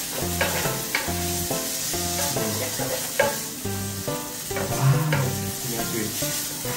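Spaghetti sizzling in a hot electric pan as it is stirred and tossed with a wooden spatula, with light scrapes and knocks, over background music.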